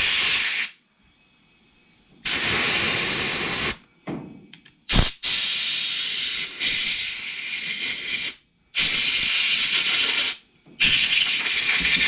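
Compressed air from a shop compressor blown in repeated bursts through the ports and passages of a mini bike carburetor to clear them after cleaning. About five loud hissing blasts, each one to three seconds long, with short breaks between them.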